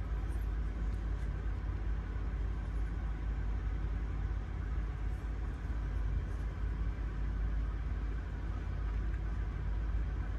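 Steady low rumble of an idling engine, even and unchanging throughout.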